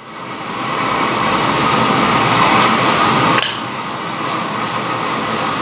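Forge blower running steadily, blowing air into a coal fire; a short click about three and a half seconds in, after which it runs a little quieter.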